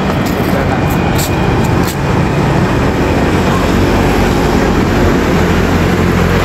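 Loud, steady outdoor road noise: a dense rumble of motor traffic with a low engine hum, mixed with wind on the microphone.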